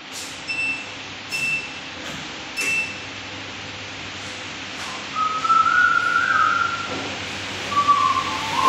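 Three short electronic beeps about a second apart over a steady hiss, then a person whistling two long notes in the second half.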